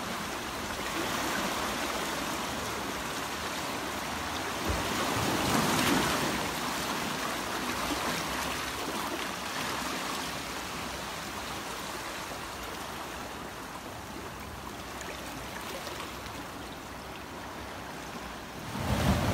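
Seawater surging and swirling between shoreline rocks: a steady rushing wash, with a louder surge about five seconds in and another swell just before it cuts off suddenly.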